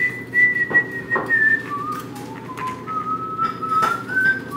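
A person whistling a tune, a single clear tone stepping up and down between notes. A few sharp clicks come from a wire whisk knocking against a stainless steel pot as the cheese sauce is stirred.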